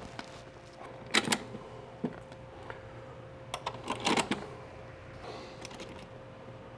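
Sonar transducer and its metal mounting bracket clicking and rattling as they are handled and fitted to a mount. A few sharp clicks come about a second in and again around four seconds in, over a faint steady hum.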